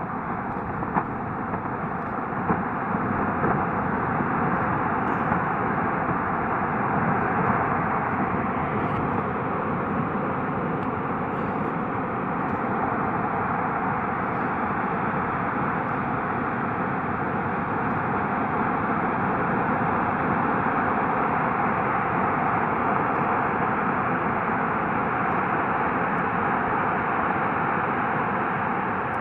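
Steady roar of a newly calved iceberg breaking up and rolling over, its ice and spray crashing into the fjord water. It grows a little louder about three seconds in.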